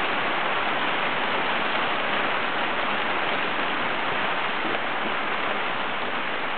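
Hail falling heavily: a dense, steady rush of hailstones striking the ground.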